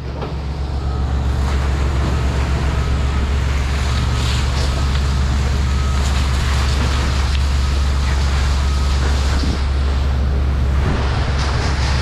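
Fire hose nozzle spraying a steady stream of water, an even hiss, over the steady low drone of a fire engine running its pump.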